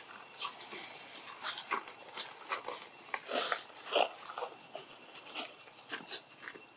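Newborn long-tailed macaque giving short squeaks and whimpers, the clearest twice around the middle, among light scattered clicks and rustles.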